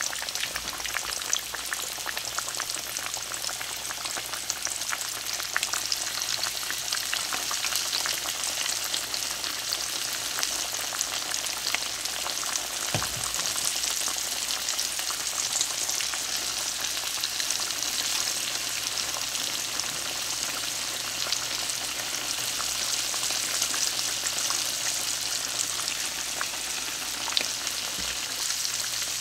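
Floured chicken pieces frying in hot grapeseed oil in a cast-iron skillet: a steady sizzle full of small crackling pops.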